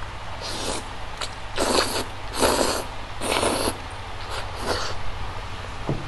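Spicy Korean noodles being slurped: a faint slurp near the start, then three loud slurps about a second apart in the middle.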